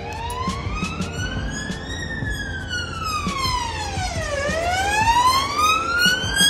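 Ambulance response car's siren on a slow wail: the pitch rises for about two seconds, falls for about two and a half, then rises again, growing louder toward the end.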